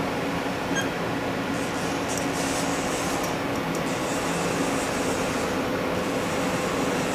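Haas VF3 vertical machining center running with a steady hum, with a higher whir coming and going from about a second and a half in as its axes are jogged. A brief beep sounds just under a second in.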